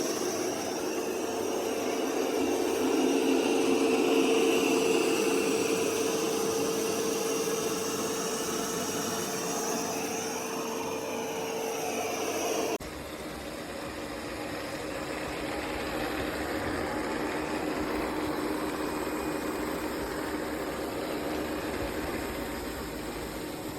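Roborock Qrevo Curv S5X robot vacuum running with a steady motor-and-fan hum. About halfway through, the sound switches abruptly to a slightly quieter, different steady whir.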